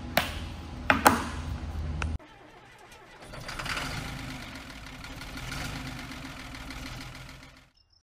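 A few sharp clicks and knocks of handling over room tone, cutting off suddenly about two seconds in. About a second later an outro sound effect swells in, runs steadily and fades out near the end.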